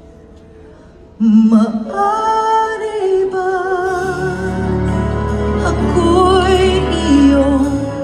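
Live ballad sung by a female singer over a backing band, heard through a concert hall's PA. After about a second of near-quiet, the voice and band come back in loudly, with held notes sung with vibrato. A deep bass line joins about four seconds in.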